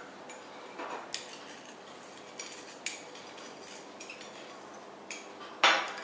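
Laboratory glassware clinking and knocking against a glass bench top as a pipette, a volumetric flask and small beakers are handled. There are scattered light clinks and taps, with one louder knock near the end, over a faint steady hum.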